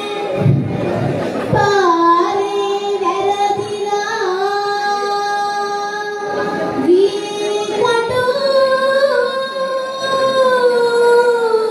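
A girl singing solo into a handheld microphone, holding long notes with a slight waver and moving to a higher note near the end. There is a short low rumble about half a second in.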